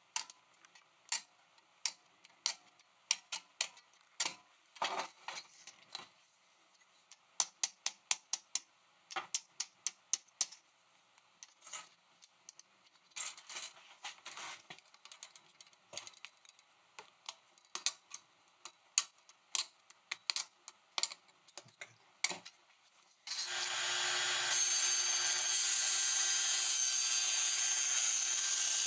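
Irregular sharp ticks and scratches of a pointed metal marking tool scoring lines on a plastic model girder bridge section against a steel ruler. About 23 seconds in, a small table saw starts suddenly and runs loud and steady with a constant tone while a girder section is fed to its blade to be cut.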